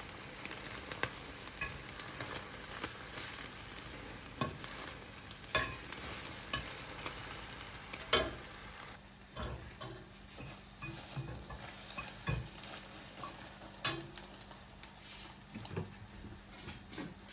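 Food sizzling in a frying pan while it is stirred, with a utensil clicking and knocking against the pan. The sizzle drops away about nine seconds in, leaving scattered clicks.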